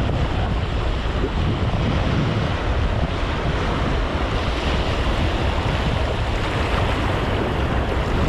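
Sea waves washing and splashing close by, with wind rumbling on the microphone.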